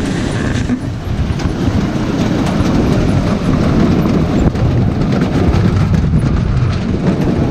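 Better Built potato seed cutter running: a steady mechanical rumble and rattle from its conveyors and sizers as seed potatoes pass through to be cut.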